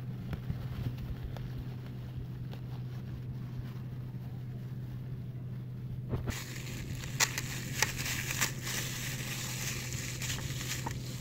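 Thin plastic bag crinkling and rustling as it is pulled open by hand, starting about six seconds in, with a few sharp crackles. A steady low hum runs underneath.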